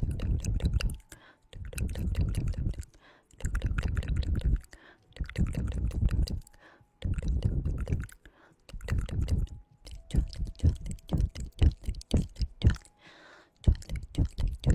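ASMR trigger sounds on a close microphone: a series of rubbing, scratching bursts about a second apart, each full of fine crackles, turning about two-thirds of the way through into a quicker run of sharp clicks.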